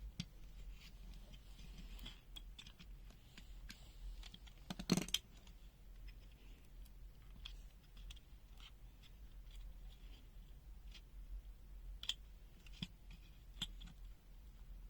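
Small clicks, taps and scrapes of a handheld digital multimeter's plastic case and parts being handled and taken apart, with one louder knock about five seconds in.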